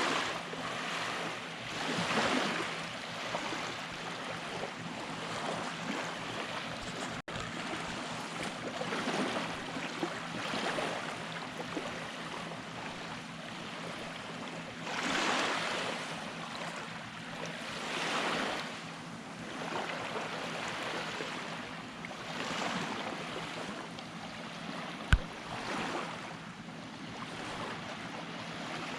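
Waves breaking and washing up on the beach, a swell of surf rising and fading every few seconds. A single sharp click sounds near the end.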